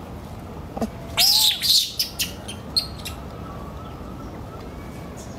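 Infant macaque giving a quick run of loud, high-pitched squeals about a second in, followed by a couple of shorter squeaks.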